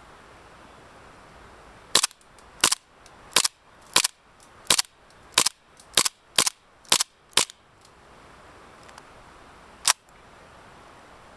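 Western Arms Colt M1911A1 gas blowback airsoft pistol firing: a quick string of about ten sharp cracks, each a gas shot with the slide snapping back, then a single shot near the end.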